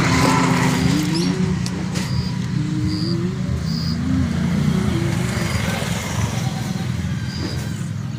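A motor running steadily, its pitch wandering up and down, with a few short high chirps over it.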